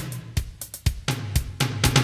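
Alesis HR16 drum machine playing a programmed beat with its HR16-B drum samples: kick and snare hits about every half second over a tuned low bass tone.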